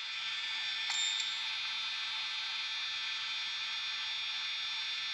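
Blaux wearable neck fan's small battery-powered fans running on high, a steady high-pitched whirring whine, with a small plug-in desk fan also running. A short beep sounds about a second in as the infrared temperature gun takes a reading.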